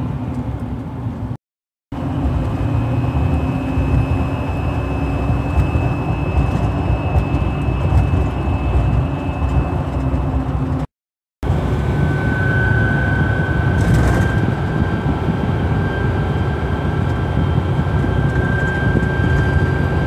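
Steady whistling hum from an aftermarket off-road LED light bar, wind passing over its cooling fins, heard inside the cab of a 2011 GMC Sierra Duramax diesel pickup over road and engine noise while driving. The whistle is higher-pitched in the first part, and after a brief silent gap about 11 seconds in it holds a lower steady pitch.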